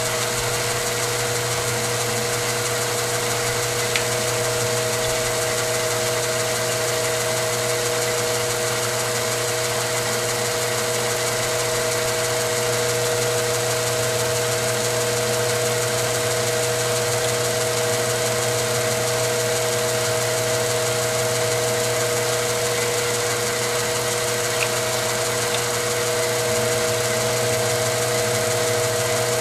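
Milling machine running steadily with an end mill slowly cutting a slot through a metal shotgun muzzle-brake tube: a constant machine hum with a couple of faint ticks.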